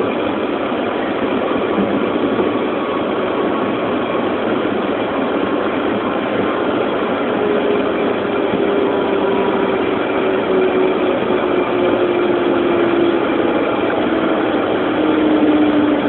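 Cabin noise of a Cessna Citation II's twin turbofan engines running at low power as the jet rolls along the runway: a loud, steady rush, with a tone that slowly falls in pitch through the second half.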